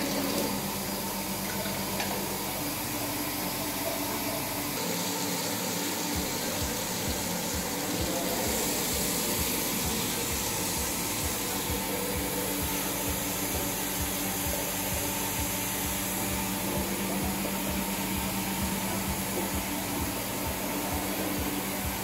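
Water spraying from a hand-held bidet sprayer onto a tiled floor drain: a steady rush of running water with a steady low hum beneath. It turns brighter and hissier about eight seconds in.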